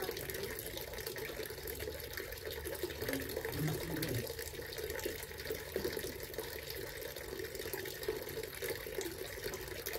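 Small garden water fountain splashing steadily, a continuous trickle of falling water.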